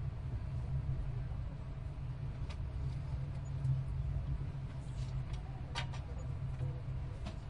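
Steady low rumble of a moving passenger train heard from inside the carriage, with a few light clicks and knocks, the sharpest about six seconds in.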